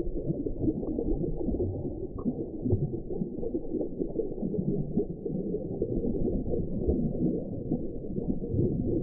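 Sea ambience heard underwater a few metres down: a steady, muffled, low churning and rumbling of moving water.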